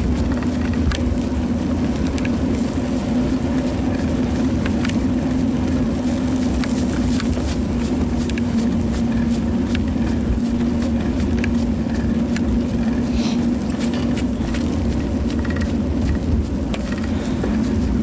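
Ride noise from a bicycle on an asphalt road, picked up by a bike-mounted action camera: a steady rumble of wind and tyres with a constant low hum, and small irregular clicks and rattles scattered through it.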